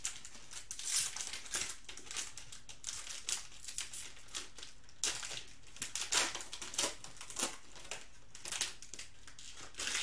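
A foil trading-card pack being crinkled and torn open by hand: a rapid run of sharp crackles and rustles.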